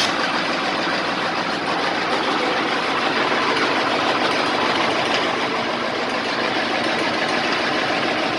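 Engine of a deep-well drilling rig running steadily.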